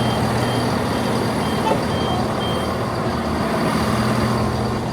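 Diesel multiple-unit train standing at the platform with its engine running in a steady low hum, while short high beeps repeat about twice a second, stopping a little over halfway through: the train's door alert.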